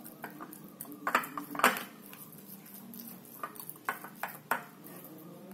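A metal fork mashing sardines on a porcelain plate, the tines clinking and scraping against the plate in irregular taps.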